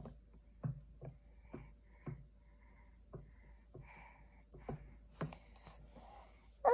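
Baby's hands tapping and patting on a plastic high-chair tray and straw cup, light taps about twice a second, with a brief loud squeal from the baby near the end.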